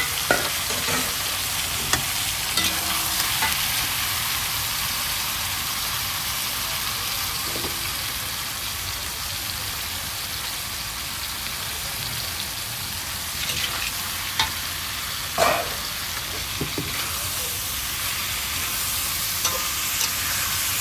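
Vegetables frying in hot oil in a pan, a steady sizzling hiss, with occasional short clicks and knocks; the loudest knock comes about fifteen seconds in.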